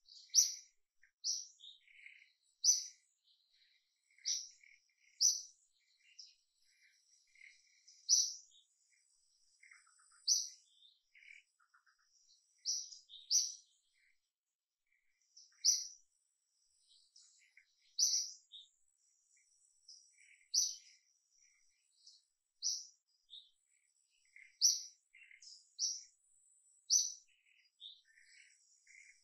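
Birds chirping: short, high chirps repeated every second or two, with fainter, lower calls in between.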